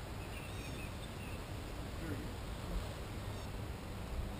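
Quiet outdoor river ambience: a steady low rumble with a few faint, short bird chirps.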